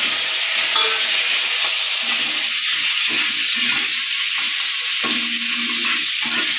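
Pieces of rohu fish and its fat frying in hot oil in a stainless steel kadai: a loud, steady sizzle, with a spatula stirring them in the pan.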